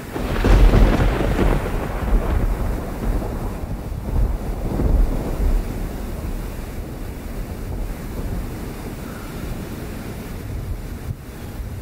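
Gusting wind of a bomb cyclone winter storm, buffeting the microphone with a heavy low rumble. A strong gust comes in about half a second in and another swell near five seconds, then it settles to a steadier rush.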